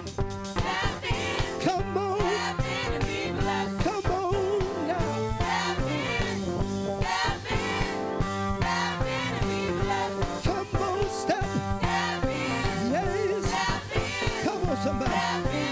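Live gospel praise music: singers from a church praise team over a band with a steady drum beat.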